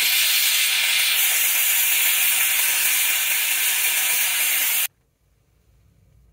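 Handheld steam cleaner jetting steam through its nozzle onto a greasy gas-stove burner: a loud, steady hiss that cuts off suddenly about five seconds in.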